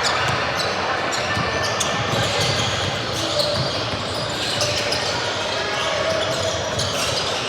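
Basketball game in a gym: a ball bouncing on the court amid scattered knocks and indistinct voices of players and spectators, all echoing in a large hall.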